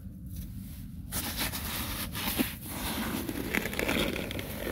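A hand digging into damp, gritty soil in a hole, with irregular scrapes and small clicks as the earth is pressed and scooped.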